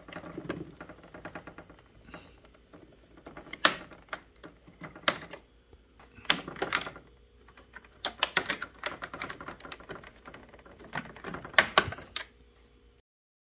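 Typing on keys: bursts of fast clicks broken by short pauses, with a few louder single strikes among them. The sound stops abruptly near the end.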